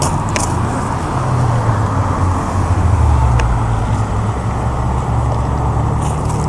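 Mitsubishi Lancer Evolution X's turbocharged four-cylinder engine running as the car pulls away down the road, a low rumble that swells about halfway through and then eases off.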